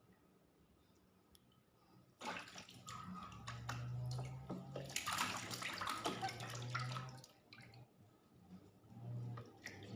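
Water splashing and being poured during a bath, starting about two seconds in and going in irregular surges with many small splashes, easing off around seven seconds in and picking up again near the end.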